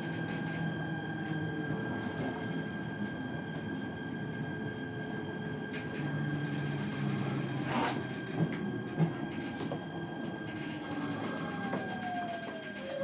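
E129 series electric train running, heard from inside the car: a steady hum with a constant high tone and low drone. Two sharp knocks come in the middle, and near the end a motor whine falls in pitch.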